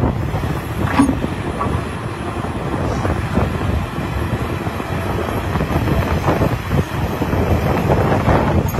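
Large Caterpillar hydraulic excavator at work: its engine running steadily while the steel bucket scrapes and knocks against broken rock, with a sharp knock about a second in and more irregular knocks later.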